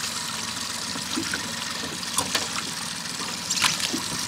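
Water sloshing around an aluminium boat hull, with a few small splashes and drips from the fish held over the side, over a steady background noise.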